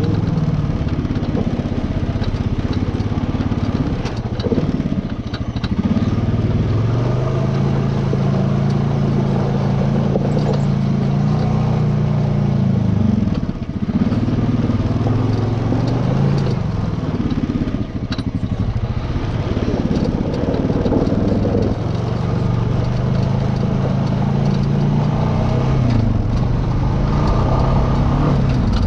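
ATV engine running under load on rough ground, its pitch rising and falling over and over as the throttle comes on and off, with scattered knocks and clatter from the rocky trail.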